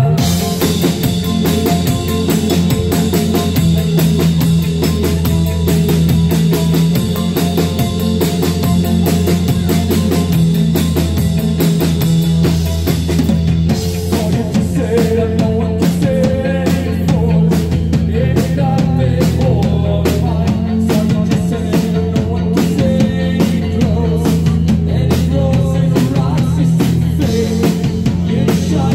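A live rock band playing loud and amplified: drum kit keeping a steady beat under bass guitar, electric guitar and keyboards. A high held tone drops out about halfway through, and the arrangement shifts.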